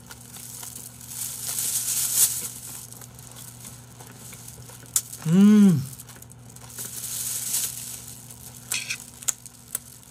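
Clear plastic bag crinkling in two stretches as food is portioned into it. About halfway through, a short voiced hum that rises then falls in pitch is the loudest sound, and a few small clicks follow near the end.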